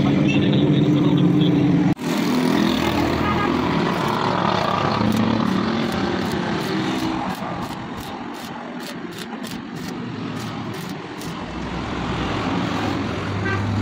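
Stick welding on a steel gate frame: the electrode arc crackling and sputtering in uneven spurts. A steady low hum runs under it in the first seconds.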